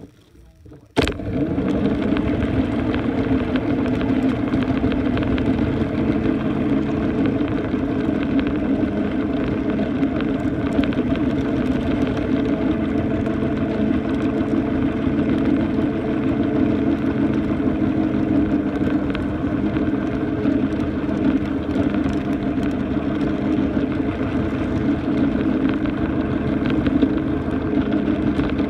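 Ride-on miniature train running steadily along its track, heard from on board: a constant motor drone with rolling wheel noise underneath, starting abruptly about a second in.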